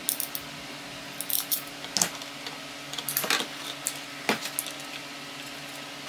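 Hand crimping tool squeezing insulated crimp terminals onto wires: a string of sharp metallic clicks in several short clusters, with small clicks from the terminals being handled.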